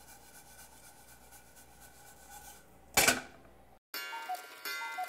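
Faint sizzle of bacon fat and panko crumbs toasting in a saucepan. About three seconds in, a brief loud rush of noise, then after a moment of dead silence a sound effect of a clock ticking over a sustained musical chord.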